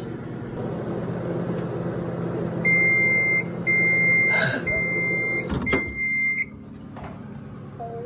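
Microwave oven running with a steady hum, then its end-of-cycle alarm sounding four long, high beeps. About five and a half seconds in, a sharp click as the door is opened, and the level drops.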